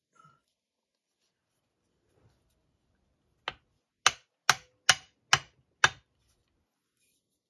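Ball-peen hammer tapping on the housing of a Ford alternator, six sharp taps about two a second starting a few seconds in, to break the case halves apart because they won't separate by pulling.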